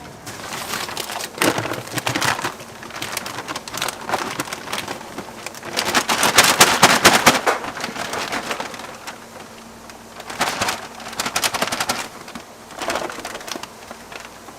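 Food sizzling and crackling in hot oil, coming in uneven surges that are loudest around the middle.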